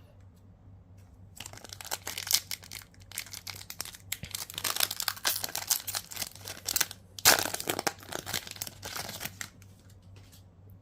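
A trading-card booster pack wrapper being torn open and crinkled. The dense rustling starts about a second and a half in and stops shortly before the end.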